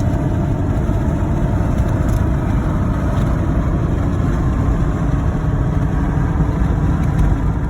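Steady road and engine noise of a car travelling at speed, with an even low rumble.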